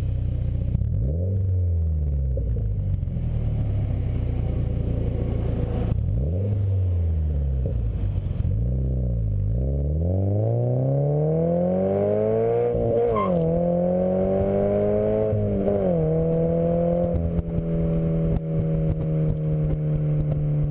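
Scion FR-S/Subaru BRZ 2.0-litre flat-four boxer engine through an ARK GRiP exhaust with a test pipe (catalytic converter removed), heard right at the tailpipe. It is blipped a few times, then accelerates with two upshifts and settles to a steady cruise for the last few seconds.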